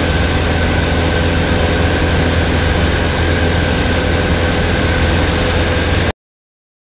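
Grumman Tiger's four-cylinder Lycoming engine and propeller droning steadily in cruise, heard loud inside the cabin. The sound cuts off abruptly about six seconds in.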